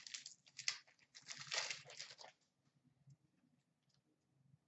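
Upper Deck hockey card pack wrapper being torn open and crinkled, in several short rustling bursts over the first two seconds or so, then faint.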